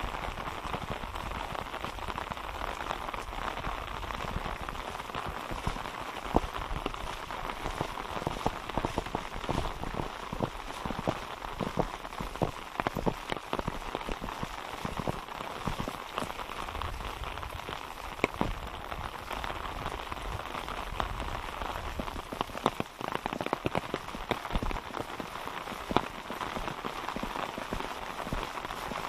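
Steady pattering of rain with many irregular sharper drops and pops.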